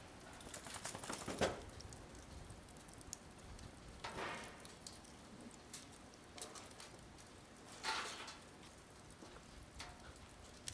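Wood fire burning in a fire pit, crackling with scattered sharp pops. Three louder, brief noisy swells come about a second and a half, four and eight seconds in.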